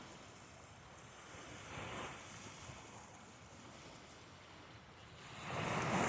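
Faint ocean surf washing onto the shore, with wind on the microphone rising near the end.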